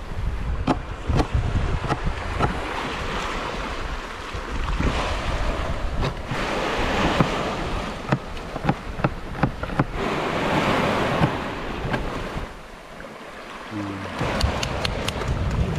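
Sea waves washing in, swelling and easing, with wind buffeting the microphone as a low rumble. Many scattered sharp clicks and knocks sound over it.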